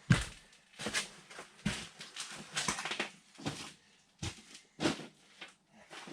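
Irregular knocks and clatters, about one to two a second, from parts and tools being handled while fitting the throttle pedal assembly in a van's cabin; the loudest knock comes right at the start.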